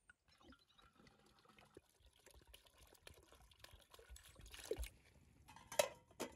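Water pours from a clay jug into a metal samovar, trickling and splashing around its central chimney. Near the end come two short sharp knocks as the samovar's metal lid is set on.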